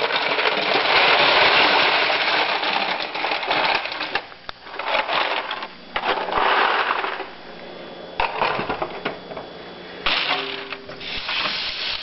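Ice cubes tipped from a tray clattering into a stainless-steel sink, thickest over the first four seconds, then in shorter bursts.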